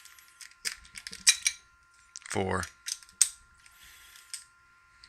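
Rake pick and tension wrench working the pins of a Master Lock No. 1 brass padlock, a run of sharp metallic clicks and a short scraping rustle as the lock is raked open and the shackle is pushed shut again.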